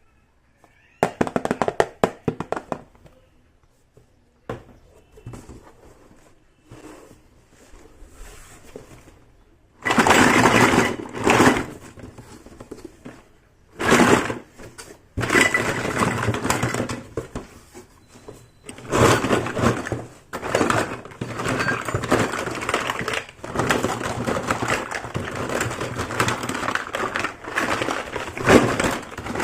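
Packaging and small toy kitchen pieces being handled and unwrapped: a run of sharp clicks and taps, then dense crinkling and rustling in bursts from about ten seconds in.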